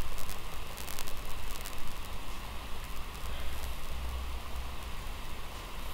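Steady hiss of background noise with a low rumble underneath and a few faint clicks early on, with no speech.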